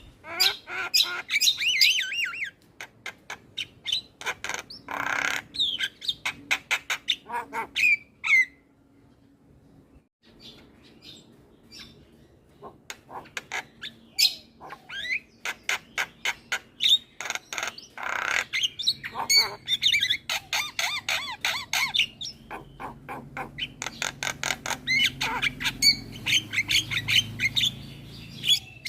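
Javan myna (jalak kebo) chattering almost non-stop: rapid runs of clicks and harsh squawks mixed with whistled notes, with a short pause about nine seconds in.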